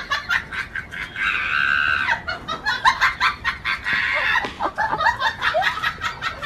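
A chicken clucking in quick short calls, breaking twice into longer squawks.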